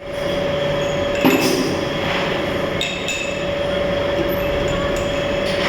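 MIG welding arc crackling and hissing steadily over a steady hum, with a few sharper clicks.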